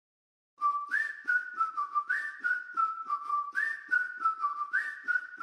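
Intro jingle: a whistled tune repeating a short phrase that steps up and back down, over a light, steady beat, starting about half a second in.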